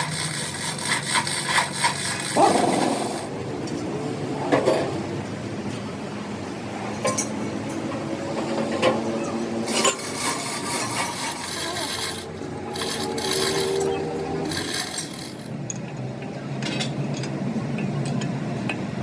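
Workshop hand-tool work on metal: irregular scraping and rubbing strokes with scattered sharp clicks and knocks, heaviest in the first few seconds and again about ten to fifteen seconds in.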